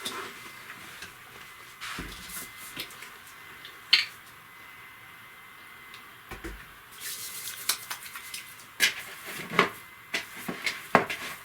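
Dishes and kitchen utensils being handled: scattered clinks and knocks, one sharp clink about four seconds in and a quick run of clattering in the last few seconds.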